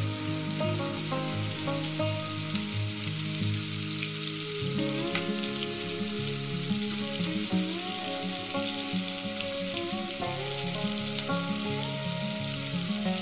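Chicken breasts sizzling steadily as they fry in butter and oil in a nonstick frying pan, with background music.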